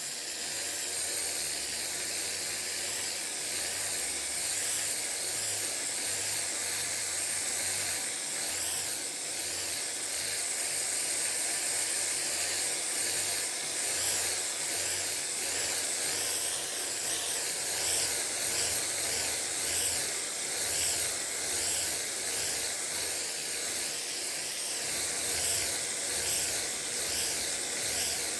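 Aerosol spray paint can spraying in one long unbroken hiss, strongest in the high end, with a gentle rise and fall in loudness.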